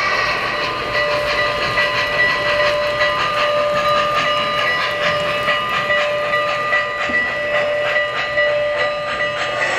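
O-scale model Norfolk & Western steam locomotive with passenger cars running past on three-rail track, its wheels giving a rhythmic clatter. A steady whistle-like tone sounds throughout.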